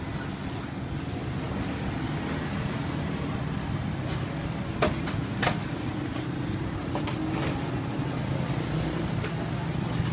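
Street traffic noise with a steady low engine hum from motor vehicles. Two sharp clicks or knocks about two-thirds of a second apart come near the middle.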